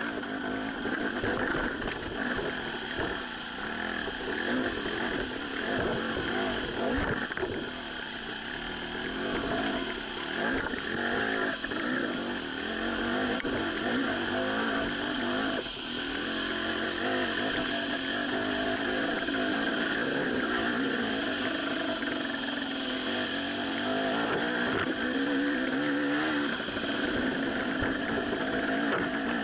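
Dirt bike engine running under way on a rough trail, its pitch rising and falling with the throttle, heard from on the bike.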